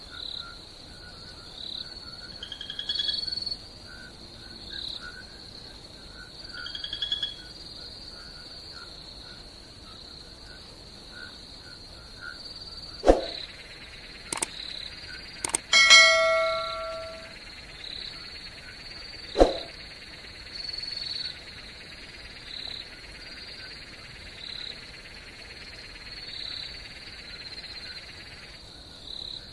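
Crickets chirping in a steady pulsing rhythm, with frogs calling now and then. About halfway through, a sharp click and a bright bell-like ding that rings for about a second, then another click a few seconds later: a subscribe-button sound effect.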